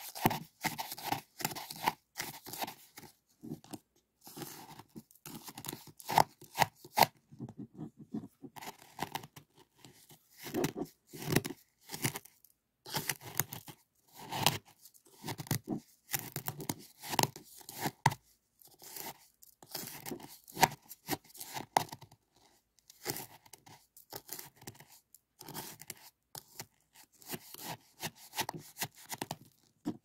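Small plastic spoon scraping and stirring through granular citric acid crystals in a small cup. The crunching, scraping strokes come in irregular runs with short pauses between them.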